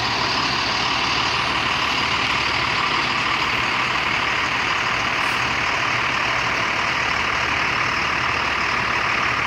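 Heavy-haul diesel tractor truck running steadily as it rolls slowly past, with an even hiss of tyres on the wet road.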